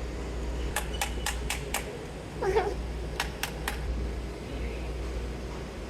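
Sharp clicks from working on a seized liquid transfer pump, about five quick ones and then three more, over a steady low hum.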